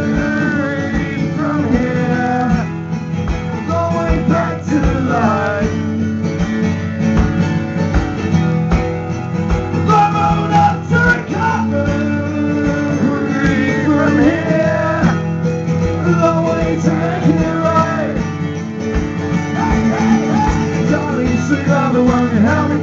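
Two acoustic guitars strumming an up-tempo song live, with a steady driving rhythm and a singing voice over them at times.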